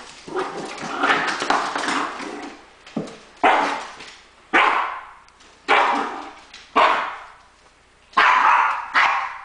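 Small Yorkshire terrier barking: a dense run of rough barks over the first couple of seconds, then single sharp barks about once a second.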